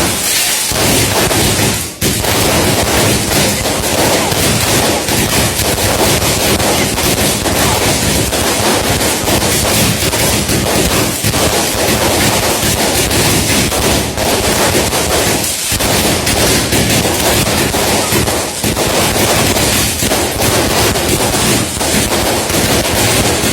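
Daytime fireworks going off in a dense, continuous string of rapid bangs and crackles, like a machine-gun rattle, with brief lulls about two seconds in and again in the second half.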